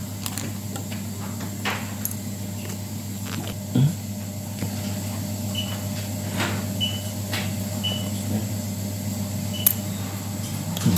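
Small clicks and taps of metal hand-removing levers and a clear plastic movement holder as the hands are pulled off a quartz watch movement, with a slightly louder knock just before 4 s and a few brief high pips near the middle. A steady hum runs underneath.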